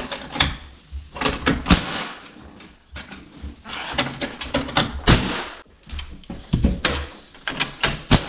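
A string of irregular knocks, clunks and taps, with rustling and scraping between them, from hands-on renovation work on a house wall.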